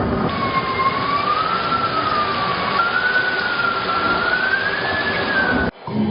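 Water puppet theatre music: a single melody instrument holds one long note that slowly wavers and rises in pitch over a steady hiss, then cuts off near the end.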